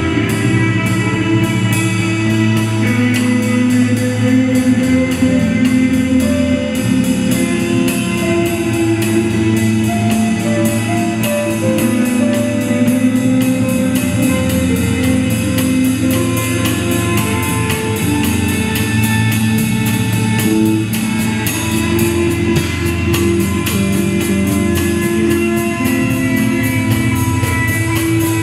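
Live instrumental music from a six-string electric bass, electric guitar and drums: held bass and guitar notes over a fast, even beat of sharp ticks.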